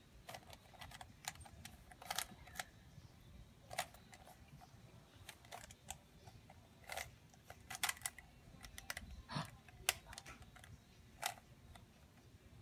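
Plastic Rubik's cube being turned, its layers clicking in irregular short clicks, sometimes several in quick succession.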